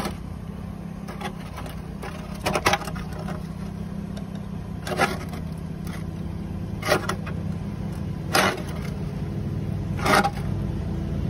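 Nissan Altima engine idling through a crude taped-together aftermarket exhaust pipe, a steady low drone. About six brief sharp noises cut across it every couple of seconds.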